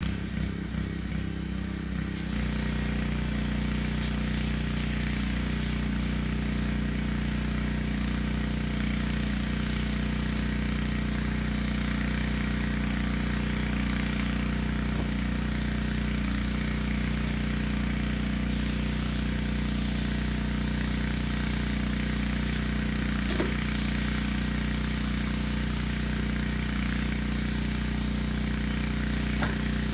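A steady low mechanical drone, like an engine running, holding an even pitch and level after a change about two seconds in.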